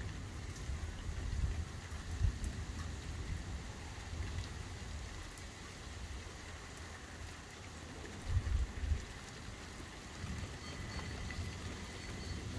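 Rain falling steadily during a thunderstorm, with a low rumble underneath that swells briefly about eight seconds in.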